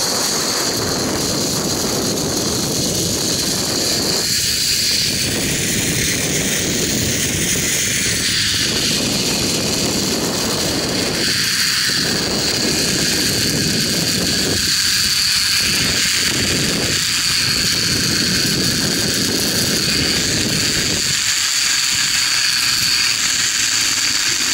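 Zipline trolley pulleys running along the steel cable with a steady high whine, under loud wind rush on the microphone that comes and goes. The rush falls away over the last few seconds as the ride slows into the landing platform.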